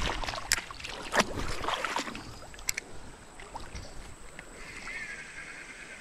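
Sharp clicks and knocks of rod and gear being handled in a plastic kayak, with water moving against the hull, over the first few seconds. Near the end comes a soft whirring hiss about a second and a half long from the spinning reel and line.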